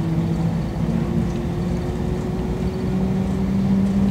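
Shanghai Maglev train heard from inside the cabin as it pulls away and gathers speed: a steady rumble with a humming drive tone that rises slowly in pitch as the train accelerates.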